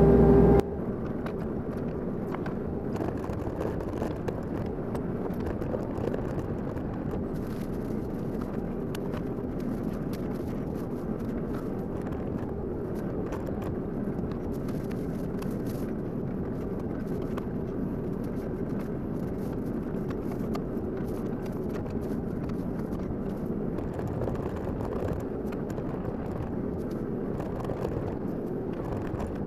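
Mini excavator engine running steadily, heard from the operator's seat. A louder, humming stretch at the very start cuts off under a second in, leaving an even, unchanging sound.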